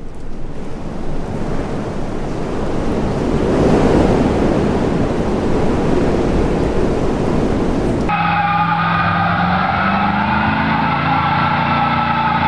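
Car engine sound: a loud rushing noise building over the first few seconds, then an abrupt cut about eight seconds in to a Camaro's engine held at steady high revs, as in a burnout.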